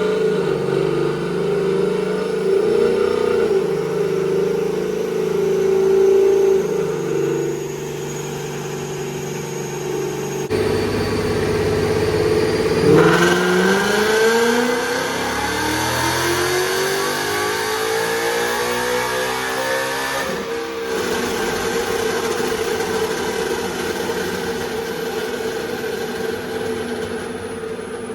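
Ford Mustang GT's 5.0 Coyote V8 with long-tube headers running, most likely on a chassis dyno: a steady engine drone, then about halfway through a full-throttle pull, the engine note climbing steadily in pitch for about seven seconds before it drops back. The sound cuts abruptly twice between clips.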